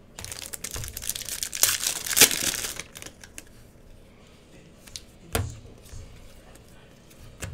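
Foil wrapper of a Panini Score football trading-card pack crinkling and being torn open for the first three seconds. After that, quieter handling of the cards, with one knock about five and a half seconds in.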